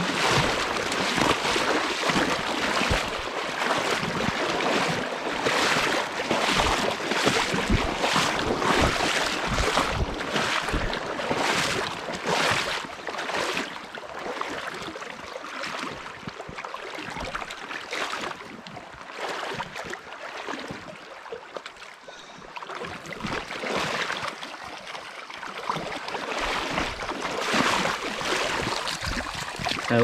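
Fast river riffle rushing and sloshing close by, with a run of splashing surges about once a second as someone wades through the current. The surges ease off midway and pick up again near the end.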